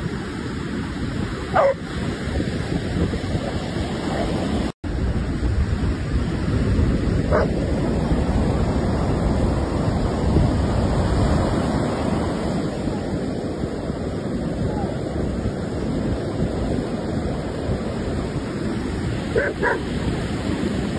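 Ocean surf breaking with wind noise on the microphone, and a few short dog barks: one about two seconds in, one around seven seconds in, and two close together near the end.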